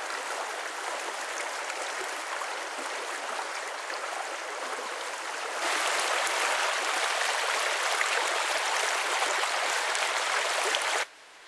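Small brook rushing over shallow stones: a steady hiss of running water. It gets louder about halfway through, then drops sharply to a faint wash near the end.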